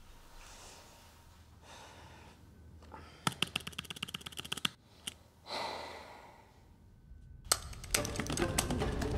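A woman breathing out and sighing, with a quick run of computer keyboard keystrokes about three seconds in and more dense key clicking near the end.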